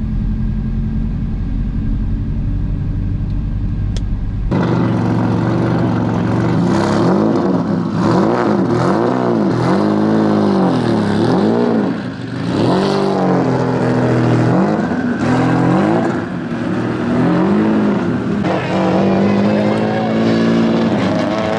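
A car's engine running hard on a race track, its pitch climbing and dropping over and over as it revs up and comes off the throttle. A steady low drone changes abruptly, about four seconds in, to the louder revving.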